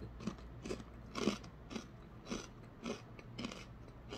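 A man chewing a mouthful of kettle-cooked ridged potato chips: a crunch about twice a second, the loudest about a second in.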